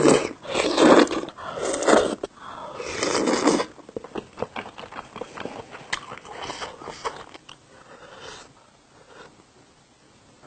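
Close-miked eating of cheese tteokbokki: four loud wet mouthfuls in the first few seconds, then softer chewing with small mouth clicks that die down near the end.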